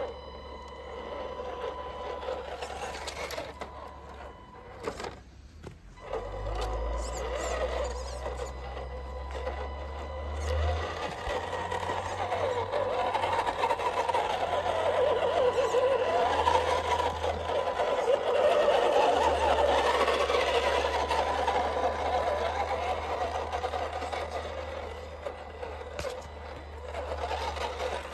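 Small electric motor and gears of a radio-controlled Toyota pickup truck whirring as it drives over dirt. The pitch rises and falls with the throttle, and it is loudest in the middle stretch.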